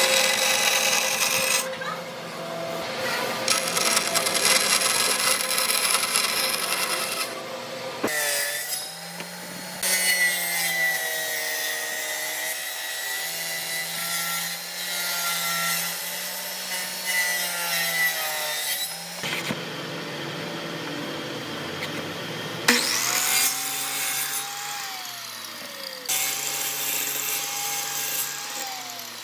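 Power saws cutting wood in a run of short clips: a bandsaw first, then a table saw, then a miter saw. The saw motors' pitch sags and recovers as the blades bite into the planks.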